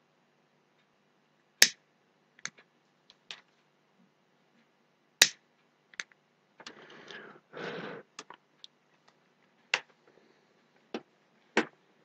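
Handling noise at a soldering bench: scattered sharp clicks and taps as wires and tools are handled, the loudest about five seconds in, with two short rustles a little after the middle.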